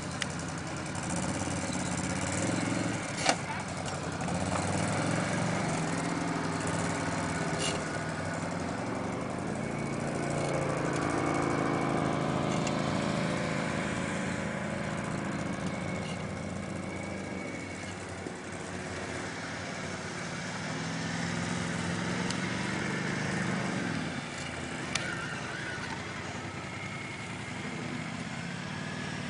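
Quad bike engines running at low speed over rough ground, the engine note rising and falling as the throttle is opened and eased off. A few short sharp clicks stand out, the loudest about three seconds in.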